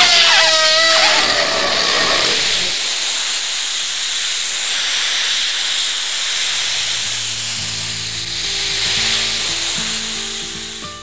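A loud, steady hiss with a falling tone in the first second; low held music notes come in about six seconds in.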